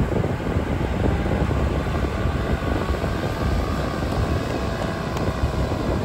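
Powered paraglider's small propeller engine droning overhead, a steady faint buzz under heavy wind noise on the microphone.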